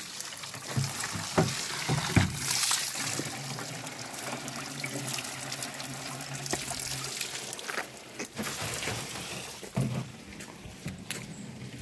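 Spring water pouring from a pipe into a plastic jug, trickling and splashing as the jug fills. A few knocks of handling near the end.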